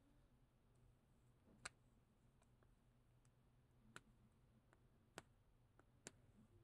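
Faint, scattered clicks and ticks, four of them sharper, from fingers working at a small plastic liquid-lipstick tube and the sticker sealing its cap to get it open.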